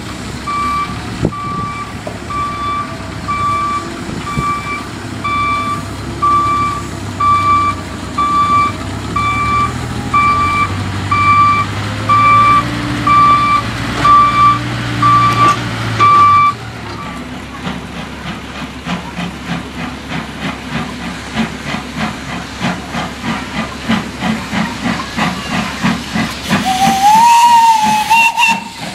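Backhoe loader's reversing beeper sounding about one and a half times a second over its diesel engine running. Then a steam locomotive chuffing, the chuffs quickening, with a short rising blast on its steam whistle near the end, the loudest sound.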